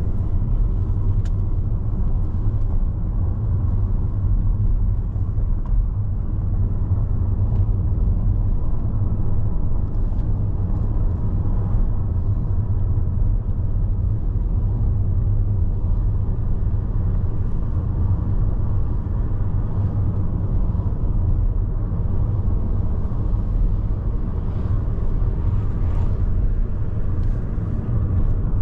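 A car driving at steady speed, heard from inside: a continuous low rumble of road and engine noise.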